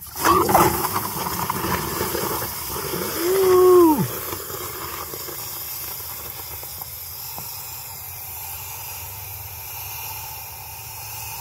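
Pressure washer spray hitting a red-hot cast iron exhaust manifold: a sudden loud burst of hissing steam that settles into a steady hiss. A short tone rises and then drops away near four seconds in.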